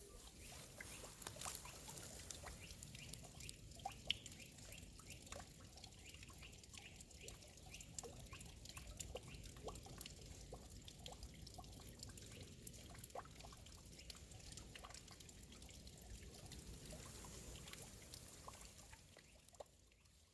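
Water trickling and dripping at a spring fountain, a steady run of small plops and splashes; it fades out near the end.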